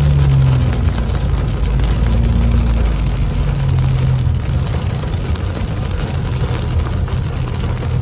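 Heavy rain pattering on a car's roof and windshield, heard from inside the cabin over the steady low hum of the car driving on the wet road.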